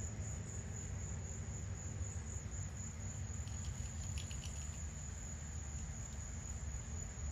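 Insects in the trees and grass droning steadily on one high pitch, over a constant low outdoor rumble, with a few faint ticks about halfway through.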